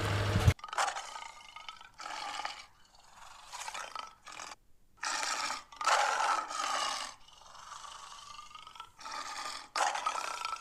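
A run of short roaring calls from a big animal, about ten of them, each well under a second with brief gaps between.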